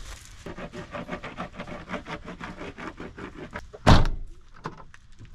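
Bar of surf wax rubbed over a surfboard deck in quick strokes, then one loud thump about four seconds in.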